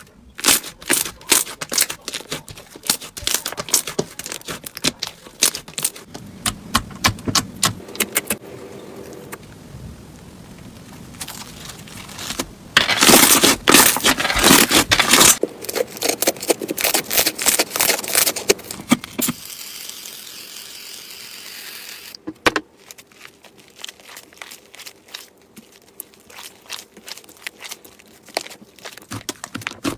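Slime being squeezed and worked by hand, giving many quick crackling pops and clicks, with a dense, loudest run of crackles about halfway through.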